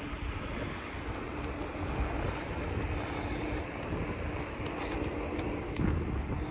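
Bicycle rolling along an asphalt street: a steady low rumble of tyre noise and wind on the microphone, with a faint broken hum. A sharp click comes near the end.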